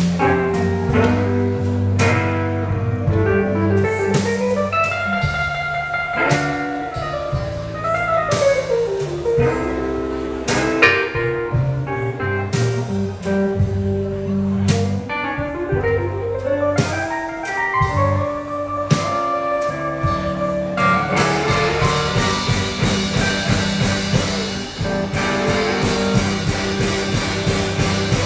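Live blues band playing: electric guitar lead with bending, sustained notes over upright bass and saxophone. The band's sound grows denser and brighter in the last quarter.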